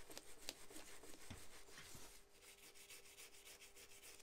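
Faint scratchy rubbing as the corroded valve inspection caps on a Yamaha Townmate's cylinder head are scrubbed clean, busiest in the first couple of seconds and then lighter.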